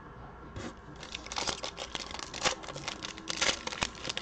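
Foil wrapper of a 2021 Panini Prizm basketball card pack crinkling and tearing as it is handled and opened, starting about a second in as a dense, irregular run of crackles.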